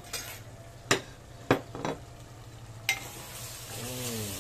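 Sharp clinks of a metal ladle against a clay pot, about five in the first three seconds. Then the chicken in its thick red-wine sauce starts sizzling as it is stirred, the braising liquid nearly boiled dry.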